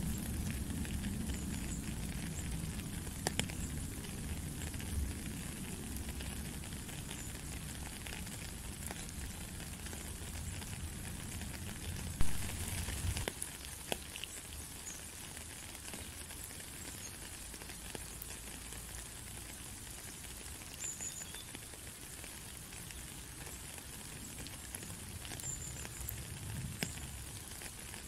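Rain falling steadily, an even hiss of drops with scattered individual drips and plinks on puddle water. A low rumble underneath drops away about halfway through, and a sharp tap stands out near the middle.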